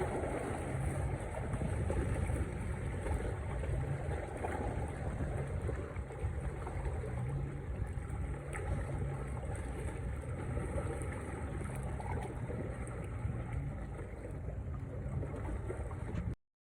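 Steady outdoor wind noise on the microphone with lakeside water, a low, even rumble without distinct events, cutting off suddenly near the end.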